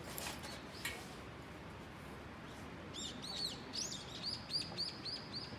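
A bird sings a fast run of repeated clear chirps, about three a second, starting about three seconds in. Two sharp clicks or knocks come near the start.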